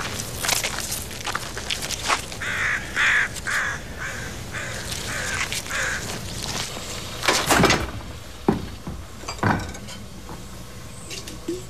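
A crow cawing in a run of about six harsh calls over footsteps on gravel. Then a loud clatter and two knocks as the handle of an old refrigerator door is worked.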